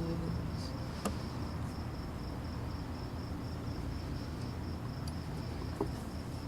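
Crickets chirping in a steady, rapid pulse over a low background rumble, as the last notes of the acoustic song die away at the start.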